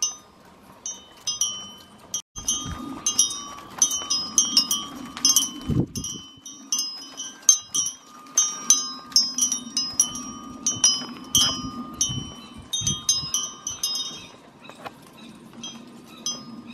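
Chimes ringing in quick, irregular strikes at a few fixed high pitches, like wind chimes stirred by a breeze, over a low rumble with a few dull thumps.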